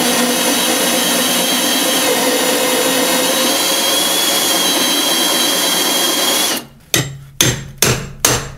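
Power drill running a 3-inch Milwaukee hole saw through a thick wooden timber, a steady grinding cut with a motor whine, stopping about six and a half seconds in. Then a hammer strikes a screwdriver driven into the cut, several sharp blows a little over two a second.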